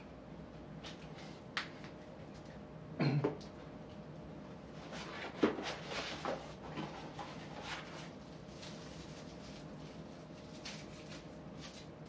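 Handling of camera quick-release parts and a small cardboard box: scattered clicks, a heavier knock about three seconds in, then a run of rustling and light tapping from the packaging.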